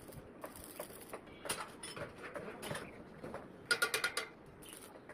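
Irregular metal clicks, knocks and scrapes from work on a mild-steel staircase, with a quick run of about five ringing metallic taps a little past halfway.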